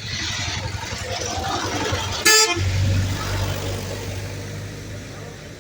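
A vehicle horn gives one short toot about two seconds in, over the noise of a vehicle. A steady low engine hum follows and fades toward the end.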